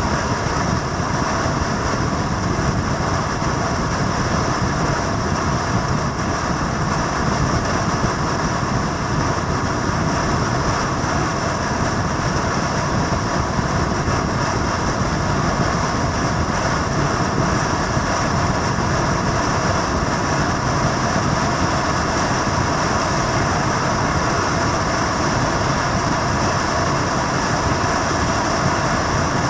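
Steady, unbroken vehicle drone at one even level and pitch, with no change or break.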